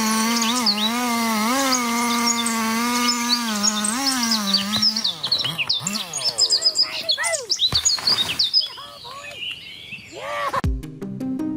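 Chainsaw engine running at high revs, its pitch dipping and recovering as it cuts, then winding down and revving up again in sweeps, with birds chirping. Music starts near the end.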